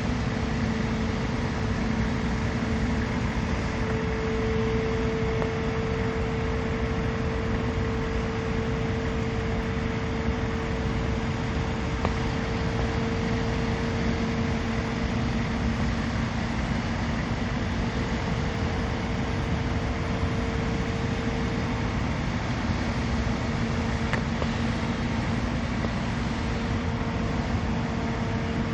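Heavy diesel engines of 200-ton mobile cranes running steadily under lifting load: a constant drone with a low held hum that wavers slightly in strength.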